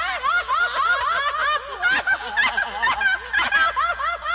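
High-pitched comic laughter in quick, short syllables, about four a second, keeping on without a break.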